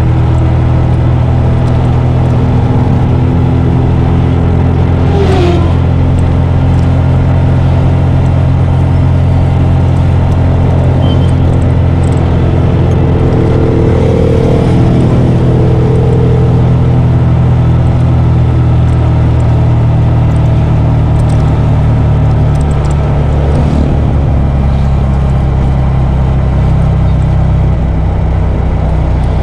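Engine and road noise heard from inside a moving vehicle's cabin: a steady low drone while cruising on the highway.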